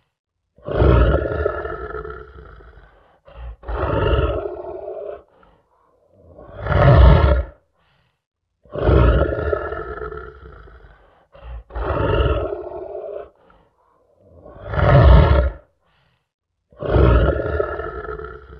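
Lion roaring: about seven loud roars, each one to three seconds long, separated by short silent gaps. The same sequence of three roars repeats.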